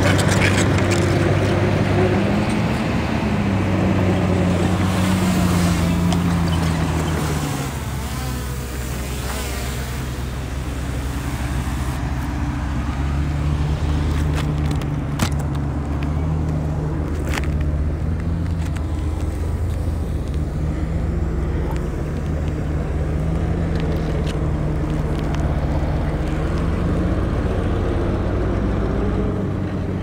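Heavy diesel engine of earthmoving machinery running under changing load, its pitch dropping and later rising again. A couple of sharp knocks come about halfway through.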